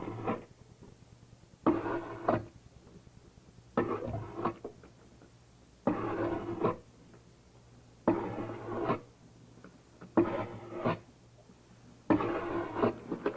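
Repeated scraping strokes, about one every two seconds, each under a second long with a sudden start and a sharp click at the end, over a steady low hum.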